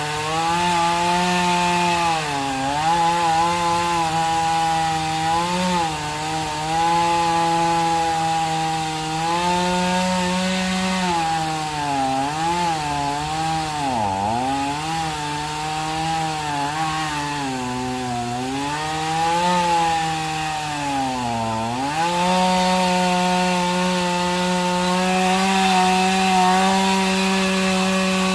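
Two-stroke chainsaw at full throttle cutting into the root ball of an uprooted oak, its engine pitch sagging again and again as the chain bites into the wood and recovering between bites, then running at a steady high pitch for the last several seconds.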